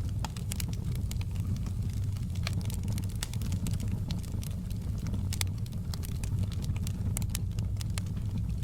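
Wood fire burning in a fireplace: many sharp, irregular crackles and pops over a steady low rumble of the flames.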